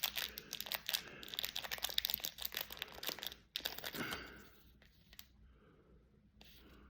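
Trading card pack wrapper being torn open and crinkled, a dense crackling for about three and a half seconds with a louder rip about four seconds in, then a few faint clicks as the cards are handled.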